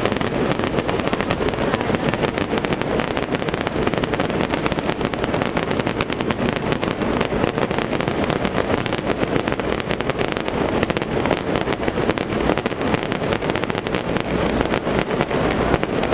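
Fireworks going off in a dense, unbroken barrage of crackling pops, many small bangs a second.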